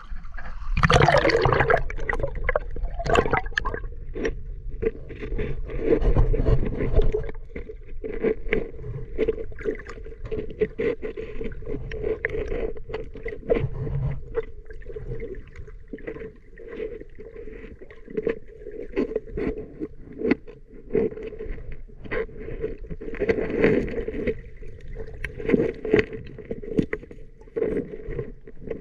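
Water splashing as a swimmer ducks under, then the muffled sound of river water heard by a submerged camera: a steady hum with many small clicks and crackles.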